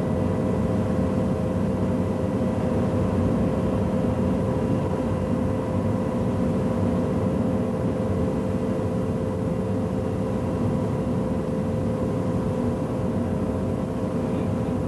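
Steady aircraft engine drone with a constant hum of a few held tones over a low rumble, unchanging in level.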